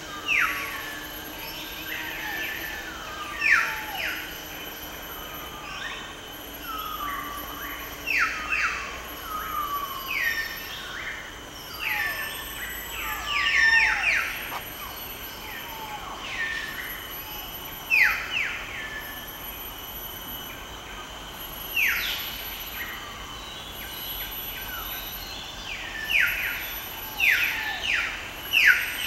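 Forest birds calling over and over in short, sharply falling notes, several at a time, with louder bursts every few seconds, over a steady high-pitched drone.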